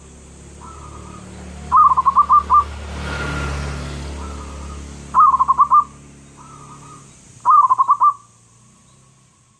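Zebra dove (perkutut) cooing: three song phrases, each a soft opening note followed by a quick run of about five loud, bubbling coos, over a low background rumble.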